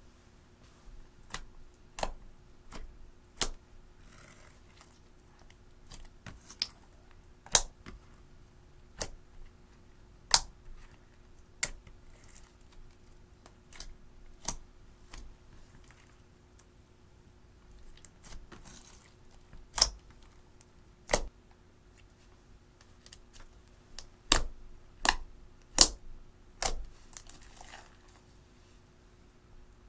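Slime being pressed and played with by hand, giving irregular sharp clicking pops of trapped air, some loud, with a few softer rustling stretches in between.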